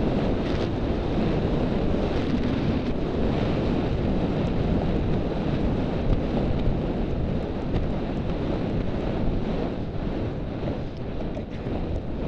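Steady rushing wind noise on a rider-mounted camera's microphone while the horse moves at speed across a cross-country course.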